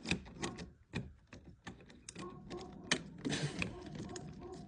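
Irregular clicks and light metal rattles of a door deadbolt being unscrewed and taken apart.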